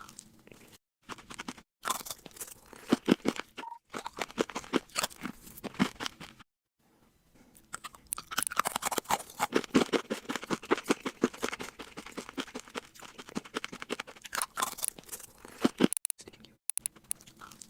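Loud, close-up chewing of crunchy food: rapid crunching bites in two bouts, the second longer and denser, with a pause of about a second between them.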